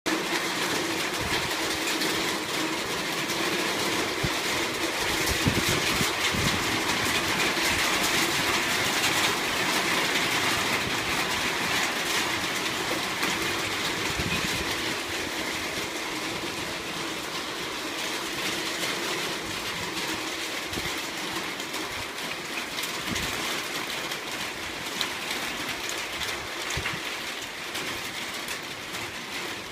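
Heavy thunderstorm rain pouring steadily, a dense hiss of falling drops with close splashes through it, easing slightly in the second half.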